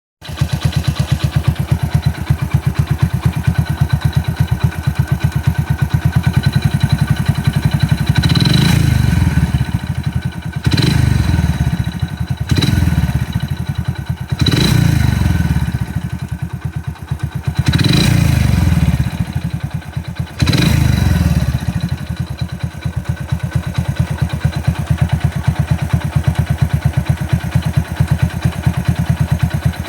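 Hero Splendor motorcycle's single-cylinder four-stroke engine idling, blipped up in revs about six times in the middle and then settling back to idle. Its running noise is the sign of a crankshaft fault, as the owner takes it.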